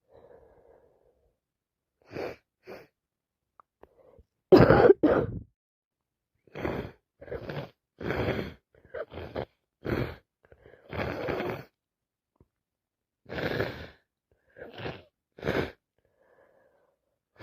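A woman with a head cold in a long coughing fit: many short, harsh coughs in quick runs, the loudest pair about four and a half seconds in.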